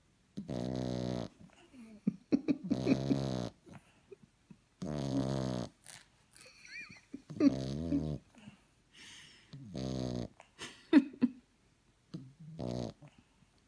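French bulldog puppy snoring: six pitched snores about every two seconds, with small clicks between them.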